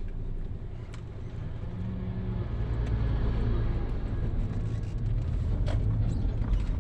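Engine and road noise of a Toyota car heard from inside the cabin while driving, a steady low rumble that grows louder about two seconds in.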